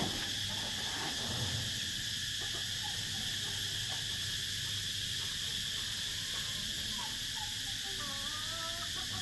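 Steady, unbroken chorus of insects such as crickets, holding several high, even tones. A faint wavering call is heard about eight seconds in.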